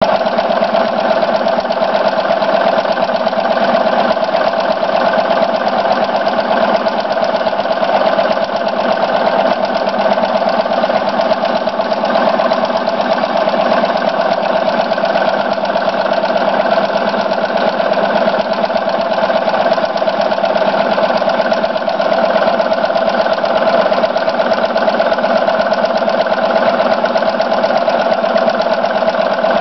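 Multi-needle embroidery machine running steadily, its needle stitching a design through a coiled rope bowl in a fast, even rhythm.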